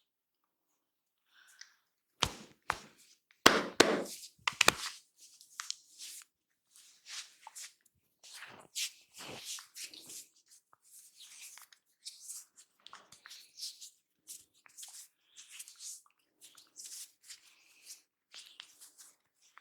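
Barber's hands working a person's head and hair during an Indian head massage. A few sharp, loud snaps and slaps come about two to five seconds in, followed by a long run of quick rustling, brushing strokes on the hair.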